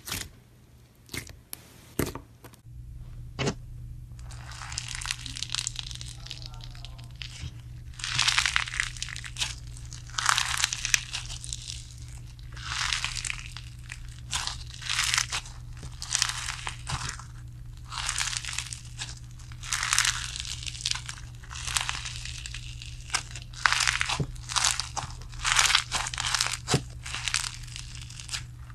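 White slime packed with sequins being stretched and squeezed by hand, giving repeated crinkly, crunchy crackles, each less than a second long and coming every second or two, over a steady low hum. A few sharp clicks come first, in the opening two seconds, as fingers press a glitter slime.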